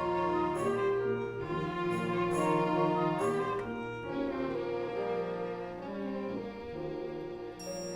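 Orchestral music: bowed strings, violins over cellos, playing a melody in held, smoothly changing notes.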